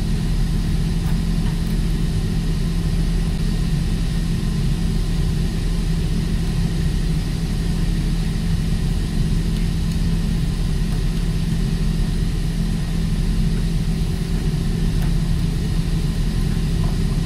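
Steady low drone of a ship's running machinery, an even hum with a constant tone and no change in pitch or level.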